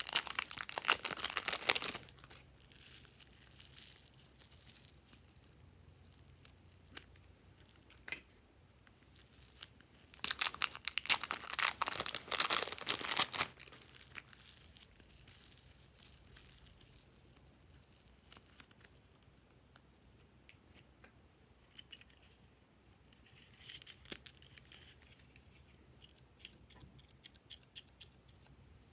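Crackling, crinkling noise of something being handled by hand, in two loud bouts about ten seconds apart, with faint scattered crackles between.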